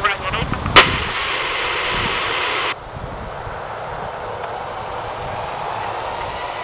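Airbus A318's twin jet engines running, a steady rushing noise with a thin high whine. A sharp click about a second in starts a louder burst of hiss that cuts off abruptly near three seconds, after which the engines alone are heard.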